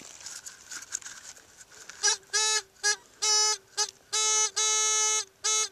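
Handheld pinpointer probe for metal detecting, sounding a buzzy electronic tone of one steady pitch in a string of irregular on-off pulses, some short and some about half a second long, starting about two seconds in. The tone signals metal close to the probe tip in the dug soil. Faint rustling of soil and leaves comes before it.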